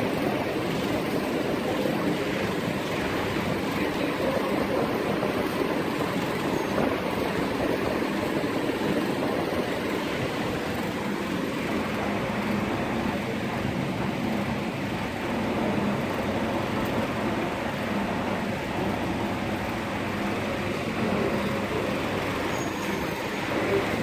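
Steady background noise of rumble and hiss with no distinct events, holding an even level throughout.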